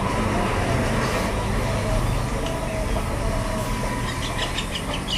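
Steady low outdoor rumble, with a run of quick high chirps about four seconds in.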